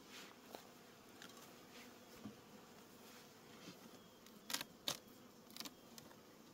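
Honeybees buzzing faintly around an opened hive, single bees now and then flying close past. Two sharp knocks come close together a little past the middle, with a lighter one soon after, as the wooden hive boxes are handled.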